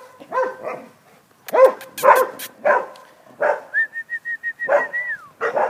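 Dogs barking in short, irregular barks, about seven in all, the loudest around one and a half to two seconds in. Between the barks, in the middle, comes a quick run of high squeaky calls at one pitch that ends in a falling whine.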